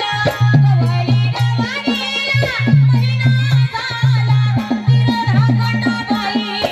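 Marathi folk song: a singing voice over quick, repeated beats on a deep-toned hand drum.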